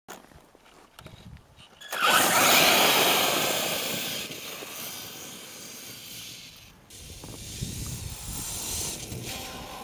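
HPI Savage Flux RC truck's brushless motor running on a 4S LiPo, with its tyres churning through snow, as it launches suddenly about two seconds in. The noise fades as the truck drives away, then rises again near the end as it comes back.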